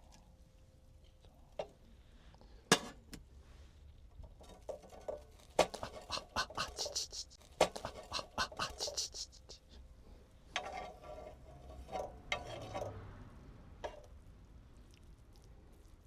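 Handling noises: a few sharp knocks and bursts of rustling and scraping, busiest in the middle, then settling.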